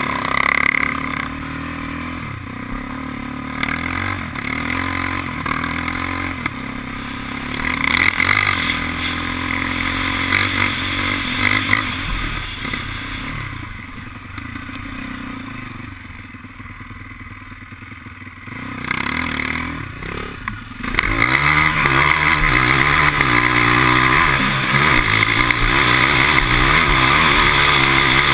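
A sport quad's engine heard from the rider's helmet camera, revving up and down as it is ridden around a dirt track. It eases off and runs quieter for a few seconds around the middle, then picks up sharply and runs hard and loud through the last third.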